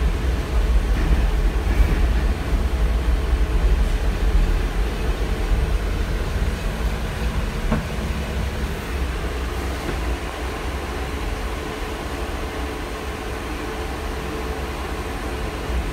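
LM-68M3 tram running, with a steady low rumble of wheels on the rails and running gear heard from inside the passenger saloon. The rumble eases a little about halfway through.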